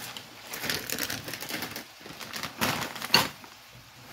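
Irregular clicks, knocks and rustling of hands handling kitchen utensils and packaging over a frying pan, with one sharp knock about three seconds in.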